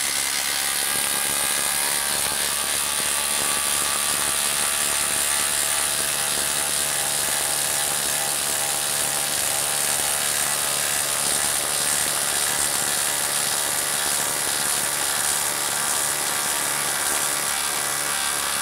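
Milwaukee M18 Fuel brushless impact driver hammering without a break at a steady level as it drives a 10-inch screw into a wooden log.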